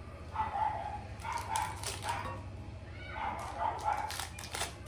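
Plastic wrappers crinkling and crackling as Bis chocolate wafers are crushed by hand inside their packets, with the loudest crackles near the end. A dog whines in several short, high whimpers.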